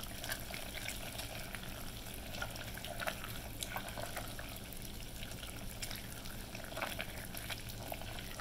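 Silicone spatula stirring hot peanut brittle candy syrup, peanuts and melting butter in a glass bowl: irregular soft scrapes and taps against the glass over a steady low hiss and hum.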